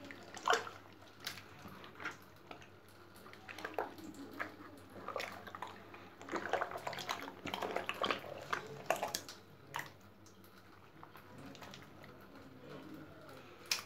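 Wet splashing and slapping of fish being handled in a plastic tub of water, in irregular bursts that are busiest in the middle and die down toward the end.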